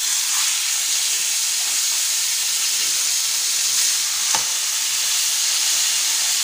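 Two thick coxão duro beef steaks searing in a hot ridged grill pan, giving a steady, high-pitched sizzle. A single short click comes about four and a half seconds in.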